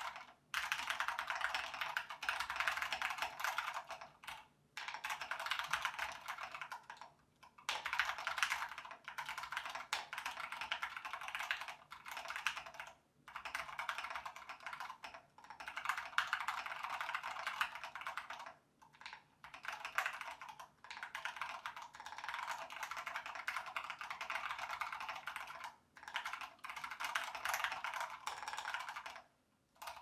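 Continuous typing on a GK64 mechanical keyboard with stock Ergo Clear switches on MX Blue springs, a Gateron Yellow space bar and PBT XDA keycaps, its case dampened with poly-fill, a tape mod and plate foam. Runs of rapid keystrokes are broken by short pauses every few seconds.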